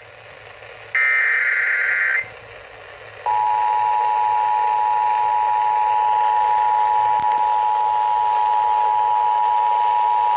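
Emergency Alert System broadcast over FM radio: one burst of the SAME digital header, about a second of warbling high data tones, then after a moment of radio hiss the two-tone EAS attention signal starts and holds steady, announcing a Required Monthly Test.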